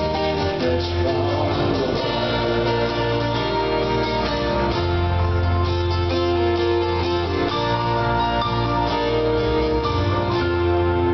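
Live acoustic band music: acoustic guitars strumming chords over keyboard and a steady low bass, heard through the hall.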